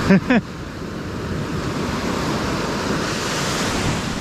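Ocean surf breaking and washing up the beach, a steady rush with wind buffeting the microphone. At the very start come two short, loud pitched sounds that fall in pitch.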